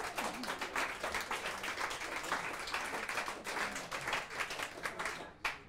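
Audience applauding, thinning out to a few last claps near the end.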